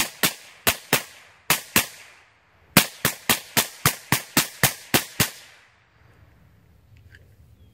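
A rapid string of about sixteen gunshots, each a sharp crack with a short echoing tail. Six shots come in under two seconds, then after a pause of about a second ten more follow at about four a second.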